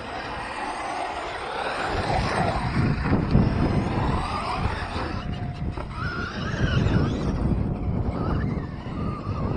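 Wind buffeting the microphone as a heavy low rumble from about two seconds in, with the whine of RC trucks' electric motors rising and falling as they speed up and slow down.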